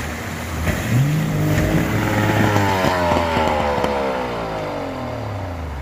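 An engine revs, its pitch climbing about a second in and then falling slowly over the next few seconds.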